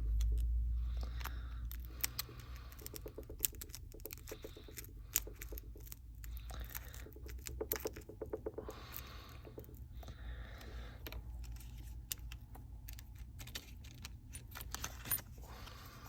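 Scattered small clicks, taps and scraping as a sharp pry tool works under the heated back glass of a phone, with little cracks of the glass as it is lifted. A low hum fades out over the first two seconds.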